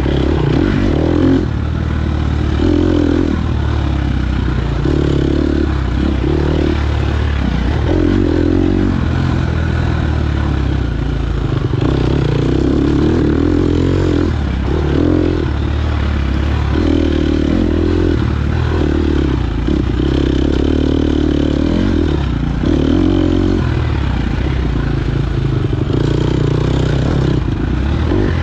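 KTM 250 XC-F off-road motorcycle's single-cylinder four-stroke engine being ridden hard, the revs climbing and dropping every second or two.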